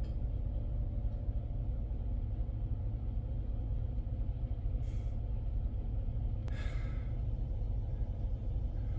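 Truck engine idling, a steady low rumble heard from inside the cab, with two brief hisses about halfway through.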